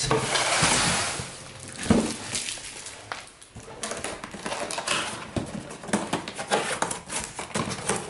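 Cardboard boxes being handled: an inner box is slid out of an outer carton with a scraping rustle, then set down with a thump about two seconds in. After that come scattered scratches and taps as a pocket knife cuts the box's packing tape.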